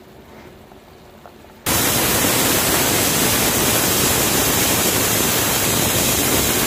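Stovetop pressure cooker's weighted whistle valve venting steam: a loud, steady hiss that starts suddenly about two seconds in. This whistle is the sign that the cooker has reached pressure, and each one counts toward the four to five whistles the cooking is timed by.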